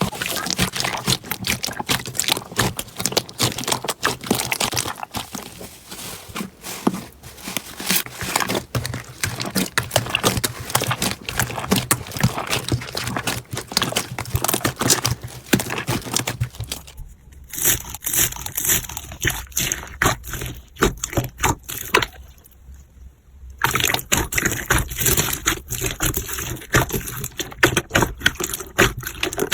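Slime being squeezed and worked by hand, giving a dense run of small crackling, popping and squelching clicks. The texture of the sound changes abruptly twice, a little past halfway and again later, as one slime gives way to another.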